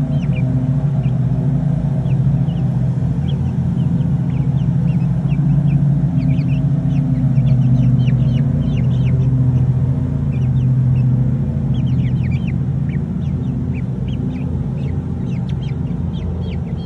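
Young backyard chickens peeping in many short, high, rising chirps, over a steady low mechanical hum that is the loudest sound throughout.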